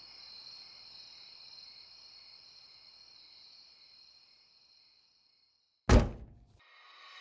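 Crickets chirping steadily, fading away to near silence about four seconds in. Then a single sudden, loud thud with a short ring-out, about six seconds in, and a rising swell of noise starting just before the end.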